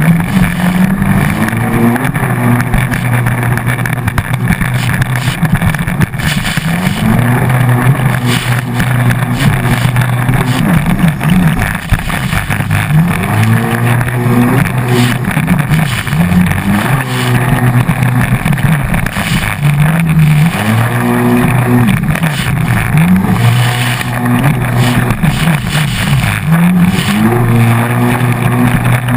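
Hydrospace 110 HP stand-up jet ski's engine heard on board, revving up and dropping back every few seconds as the throttle is worked, over a steady rush of water and wind.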